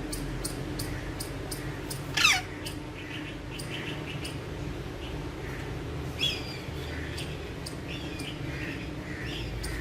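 Alexandrine parakeet calling: one loud call sweeping down in pitch about two seconds in, a shorter call about six seconds in, and soft chirps between them. Under the calls are a steady hum and a faint, even ticking about three times a second.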